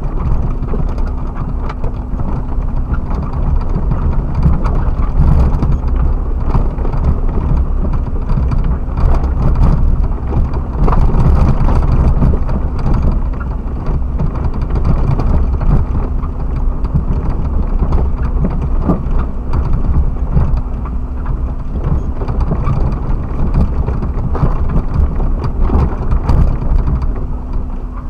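Suzuki Jimny driving over rough off-road ground, heard through a dashcam: a heavy low rumble with a steady hum underneath and constant small knocks and rattles from the bumpy surface.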